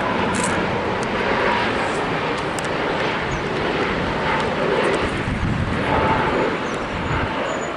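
Airliner jet engines on final approach, a steady rushing noise with a faint whine, from a Boeing 787 passing overhead as it descends to land.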